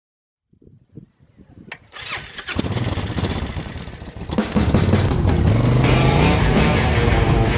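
An engine starts up and revs, its sound building from nothing over the first few seconds and then going into loud, dense rock music.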